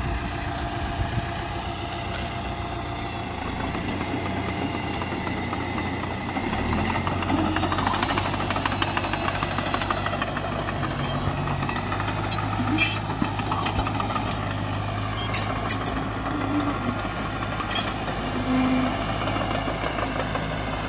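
Landini Trekker 4-105 crawler tractor's Deutz diesel engine running steadily under load while pulling a three-furrow plough, growing louder about six and a half seconds in. A few sharp clicks come through in the second half.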